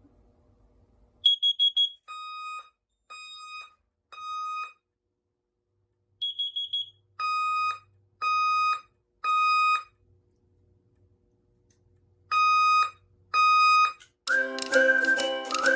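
Fire alarm horn sounding the temporal-3 evacuation pattern: groups of three half-second beeps about a second apart, with a pause between groups. The first two groups are each led by a short burst of a quick, higher-pitched pulsing tone, and the last group breaks off after two beeps. Music starts near the end.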